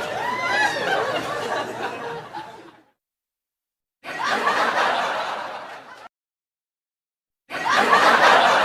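Laughter sound effect in three separate takes divided by dead silence. The first fades out about three seconds in. The second starts about a second later and cuts off abruptly. The third starts loud near the end.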